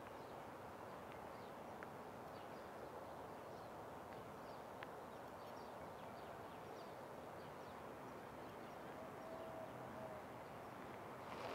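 Small birds chirping faintly and often over a steady outdoor background hiss. A brief low hooting note sounds about nine seconds in.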